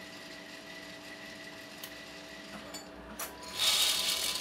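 ROEST sample coffee roaster running with a steady hum. Near the end comes a louder hiss and rattle lasting about a second, from the coffee beans moving through the machine.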